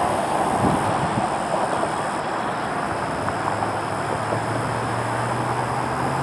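Road traffic going by, a steady rush of tyres and engines; about four seconds in, a low engine hum comes in and rises slightly in pitch.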